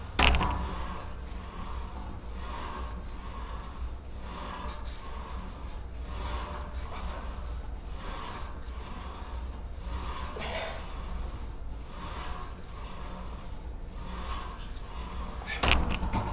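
Cable pulldown machine worked in steady reps: the steel cable rasps over its pulleys and the weight stack slides up and down, in swells about once a second.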